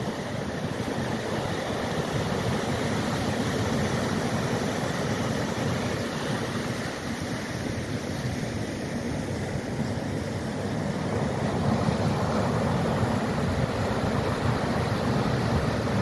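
Ocean surf breaking and washing up a sandy beach: a steady rushing roar that swells a little louder about twelve seconds in.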